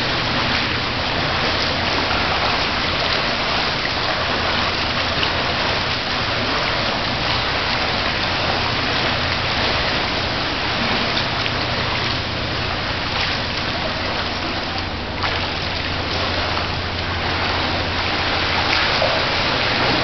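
Steady splashing and rushing of water in a swimming pool as a swimmer strokes through it, with a low steady hum underneath.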